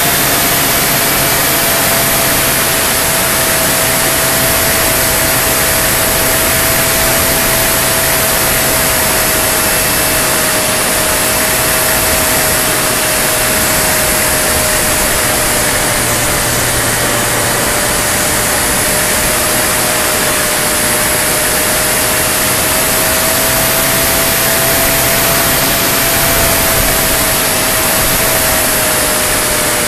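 Wind rushing over a wing-mounted camera on a flying radio-controlled model Spitfire, with the plane's motor and propeller droning at a steady pitch that drifts slightly up and down.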